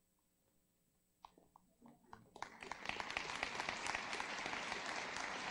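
Near silence with a few faint knocks, then from a little over two seconds in, faint applause from an audience.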